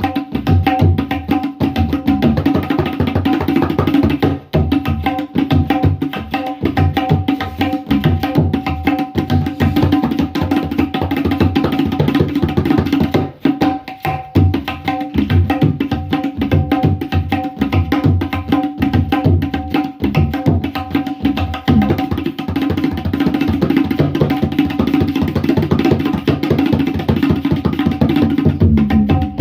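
Tabla played in fast, continuous strokes, with the ringing tuned pitch of the right-hand drum over booming strokes of the bass drum, briefly easing off twice.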